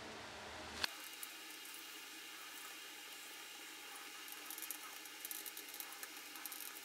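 Faint squishing and crackling of silicone sealant being squeezed from a cartridge gun along the beading, played back sped up fourfold, with a short click about a second in.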